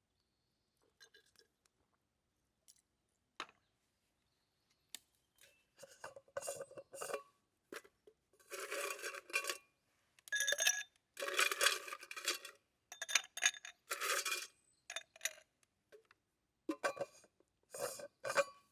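Metal cookware and utensils scraping and clinking against each other in irregular bursts, with a metallic ringing, starting faintly with a few clicks and busier from about a third of the way in.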